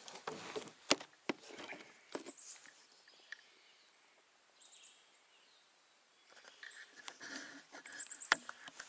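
Scattered light knocks and rustling in a small boat, bunched near the start and again near the end with a quiet spell between, and a few short high bird chirps.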